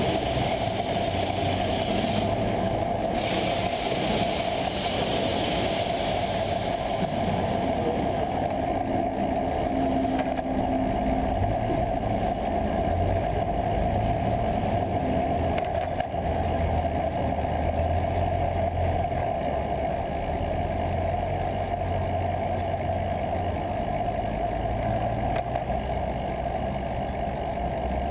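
Steady road and wind noise from a bike-mounted camera during a ride through city traffic, with the low hum of nearby car and truck engines rising and falling.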